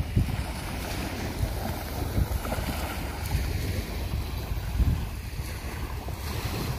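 Wind gusting on the microphone, a low uneven rumble, over small waves washing onto a sandy beach.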